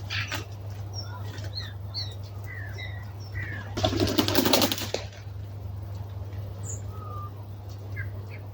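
Birds coming in to a winter roost in a hawthorn: short high calls and chirps scattered throughout, and a loud flurry of wing flaps about four seconds in lasting about a second. A steady low hum runs underneath.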